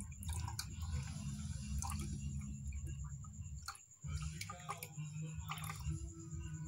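Liquid poured in a thin stream down a stirring stick into a plastic jar of liquid: a faint trickle with small ticks and drips, over a steady low hum.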